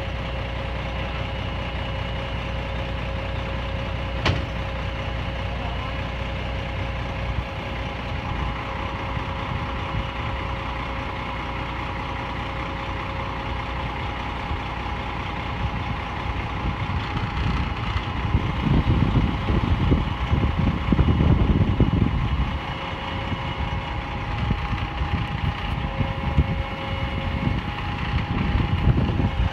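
Fire department aerial ladder truck's engine running steadily while its aerial ladder is lowered toward the bed. Several steady tones sit over the engine. There is a sharp click about four seconds in and a louder rumbling stretch around twenty seconds in.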